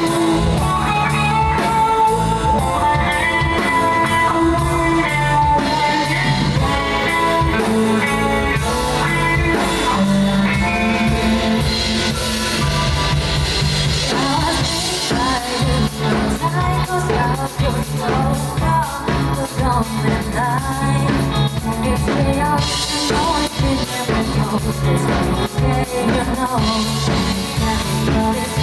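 Live pop-rock song played by a band with drum kit and guitar, with singing coming in from about the middle.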